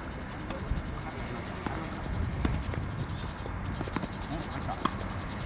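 Tennis rally: about five sharp knocks of rackets striking the ball and the ball bouncing on the court, spaced roughly a second apart, over a steady pulsing drone of insects.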